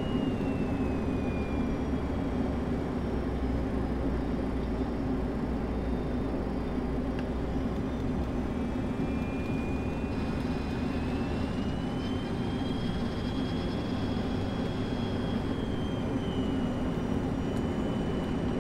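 Steady cockpit noise of an MD-83 jet airliner in descent: rushing airflow and engine noise, with a faint high whine that slowly drifts down, up and down again in pitch.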